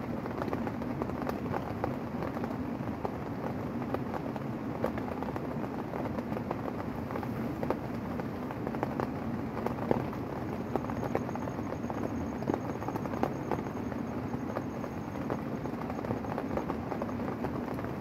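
Rain falling steadily on a tent, a dense hiss dotted with many separate drop hits.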